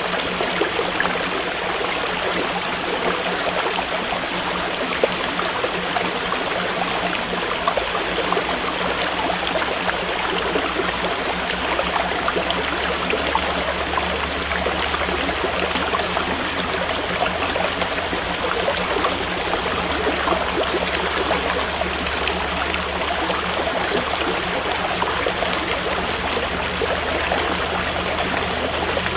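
Water of a stream running steadily, an even rushing flow with no breaks.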